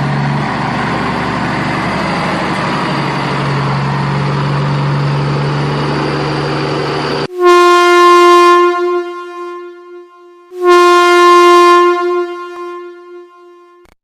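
A steady rumbling vehicle noise, cut off about seven seconds in by two long blasts of a single-note horn, each loud at first and then fading away.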